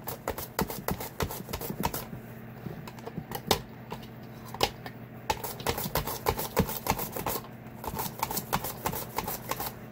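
Cucumber being slid quickly back and forth over a mandoline's V-blade in a hand guard, a fast run of sharp slicing strokes and clacks of plastic, several a second. A food dehydrator hums steadily underneath.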